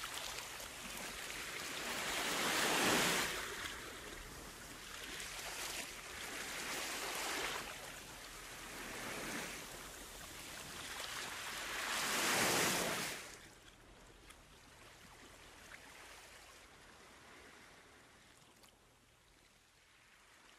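Surf: waves breaking and washing up a shore in slow swells. The two biggest come about three and twelve seconds in; after that it settles to a faint steady hiss.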